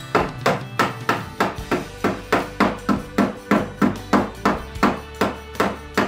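Hammer blows on the sheet-steel edge of a Jeep Wrangler YJ fender, struck in a steady rhythm of about three a second to shape the repair panel.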